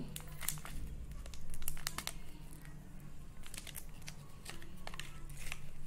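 Foil pouch of a MyLab CoviSelf rapid antigen test being torn open by hand at its notch and the test cassette pulled out, the foil crinkling and crackling in irregular small clicks, loudest about a second and a half in.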